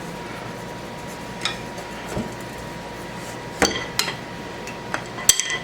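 Scattered clinks and knocks of metal lathe parts and tools being handled and set down, with a cluster in the second half; the loudest, near the end, rings briefly like struck metal.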